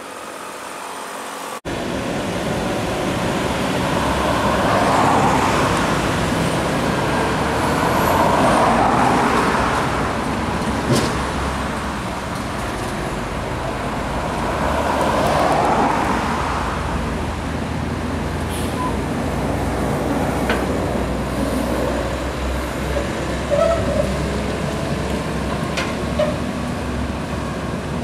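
Heavy diesel tractor truck hauling a rail car on a multi-axle low-bed trailer, its engine running with a steady low rumble as it moves slowly past. The rumble swells and eases several times, with a few short knocks along the way.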